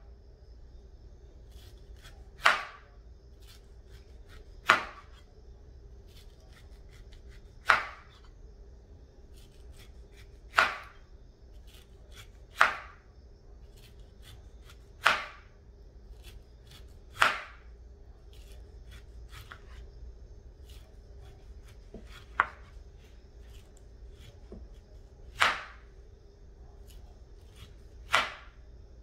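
Kitchen knife cutting through a ripe pineapple and knocking on a wooden cutting board. There are about ten sharp chops, one every two to three seconds, with a longer pause past the middle and faint small clicks and scrapes between them.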